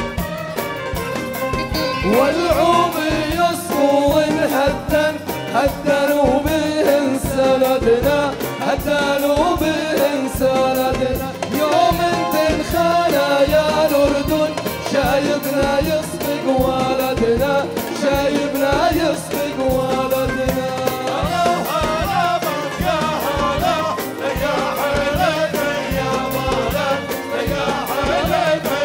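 Live Arabic song: male vocals into microphones over a band with a steady beat, the audience clapping along.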